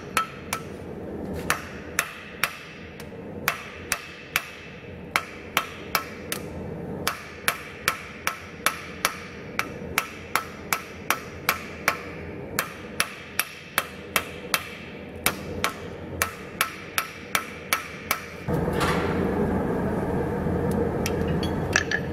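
Blacksmith's hand hammer striking a red-hot steel knife blade on an anvil: a run of sharp ringing blows, about two to three a second, with short pauses, as the blade is hand-forged. The hammering stops a few seconds before the end, and a louder steady background noise takes over.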